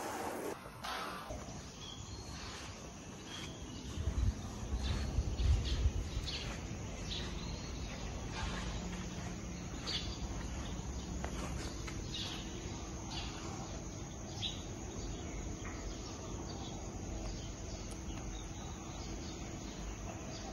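Outdoor ambience: a steady background hiss with short, high chirps now and then, and a louder low rumble about four to six seconds in.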